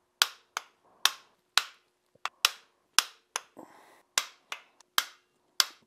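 Sharp metallic clicks and taps, about two a second at uneven spacing, from cylinder-head studs, washers and nuts being fitted by hand.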